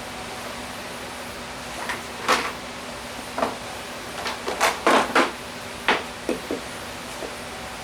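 A string of about a dozen short, sharp knocks and clacks of uneven loudness, heard between about two and seven seconds in, over a steady low hum.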